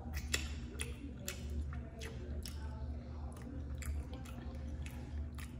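Close-miked chewing of a bite of barbecue burger: wet mouth clicks and smacks, irregular, a few each second, over a low steady hum.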